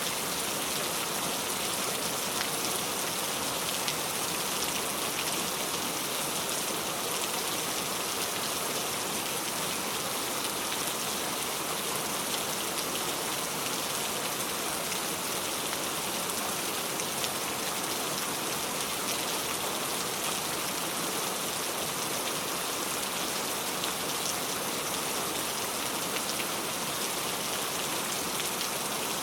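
Steady falling rain, an even hiss of drops with faint scattered patters.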